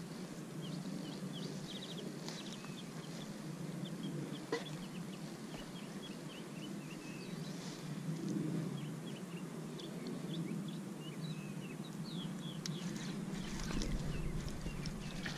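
Small birds chirping, with many short, high calls scattered throughout over a steady low outdoor background noise, and a single click about four and a half seconds in.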